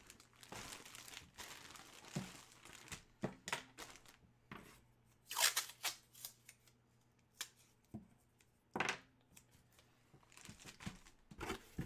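A clear plastic bag crinkling and rustling as a jersey inside it is handled, followed by scattered short handling clicks and rustles. The loudest is about five and a half seconds in, with another cluster near the end.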